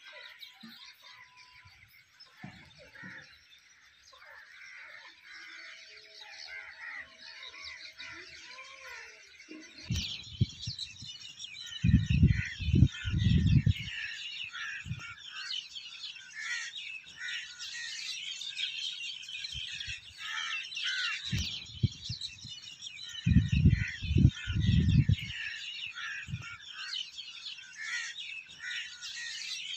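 Many birds chirping and calling in a dense chorus, busier from about a third of the way in. Twice, around a third and three quarters of the way through, gusts of wind rumble loudly on the microphone.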